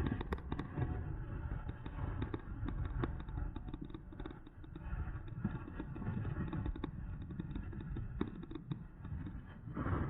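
Ride noise from an electric mountain bike in motion: a steady low rumble of wind buffeting the microphone and tyres rolling, with frequent small clicks and knocks from the bike rattling.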